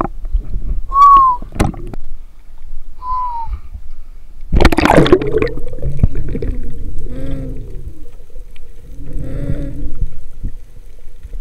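Water gurgling and bubbling around a diver spearfishing, with a loud rush of water and air about four and a half seconds in. Two short whistle-like tones come before it, one about a second in and one about three seconds in.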